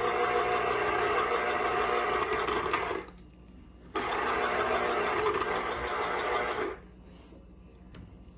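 Electric citrus juicer's motor spinning the reamer cone as an orange half is pressed onto it: a steady whirring hum that stops about three seconds in, starts again a second later, and stops for good a little after six and a half seconds.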